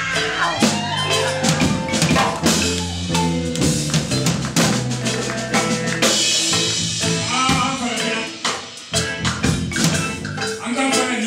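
Live band playing an upbeat groove: large wooden xylophones struck with mallets in quick runs, over electric guitar and a drum kit.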